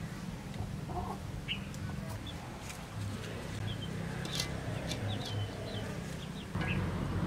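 Outdoor ambience of birds chirping in short calls, with scattered light clicks over a low steady hum that grows louder a little before the end.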